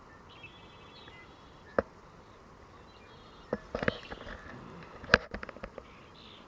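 Handling noise while fishing: a few sharp clicks and taps, the loudest about five seconds in, followed by a quick run of small ticks.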